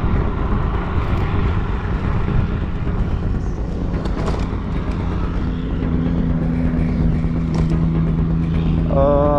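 Wind and road rumble on the microphone of a camera riding on a MetaMoov ZO08 dual-motor electric scooter in motion, with a steady low hum joining about halfway through.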